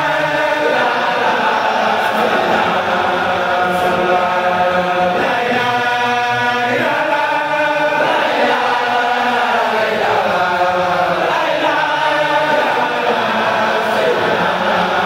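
A large congregation of men and boys chanting together in unison, an Islamic devotional chant in long held notes that slide from one pitch to the next.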